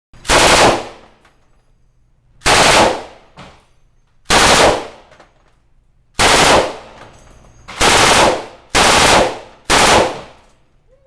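M249 light machine gun firing seven short bursts of automatic fire, each about half a second long, with gaps of one to two seconds between them; the last three bursts come closer together.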